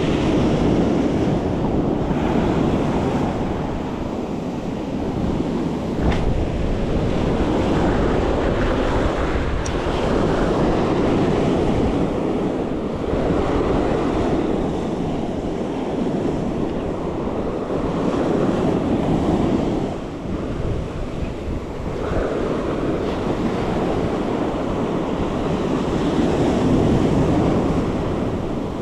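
Ocean surf breaking and washing up the beach, swelling and fading every few seconds, with wind buffeting the microphone.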